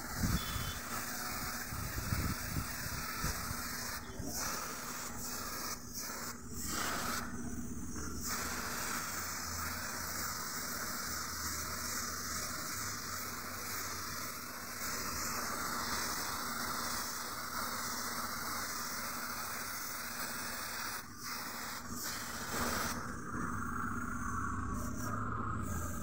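Compressed-air gravity-feed paint spray gun hissing steadily as it sprays paint, cutting out briefly a few times.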